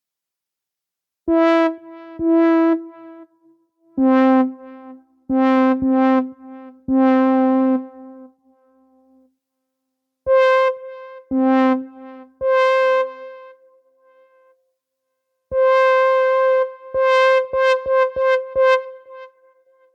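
Software synthesizer patch in Arturia Analog Lab V, played from a keyboard as single notes and two-note intervals. Each note starts with a sharp click and has a bright, electric-piano-like tone. The notes come in short phrases separated by pauses, with a quick run of repeated notes near the end.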